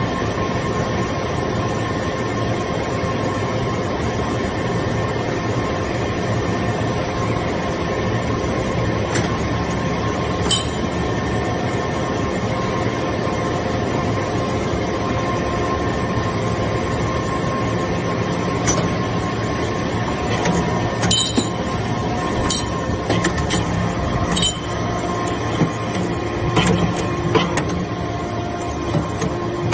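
Hydraulic power unit of a metal-swarf briquetting press running with a steady hum and whine. Sharp metallic clinks come now and then from about ten seconds in, more often near the end.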